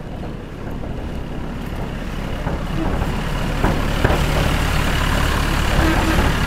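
Heavy construction-machine engine running with a low rumble that grows louder over the first few seconds, then holds steady. A few sharp knocks come through in the second half.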